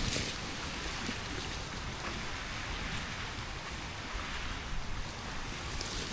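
Steady hiss of rain and rushing water, with a few faint taps of drops.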